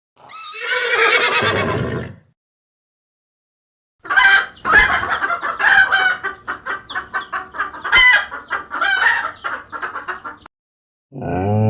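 A chicken clucking in a long, rapid run of short calls lasting about six seconds. It is preceded by a drawn-out animal call in the first two seconds.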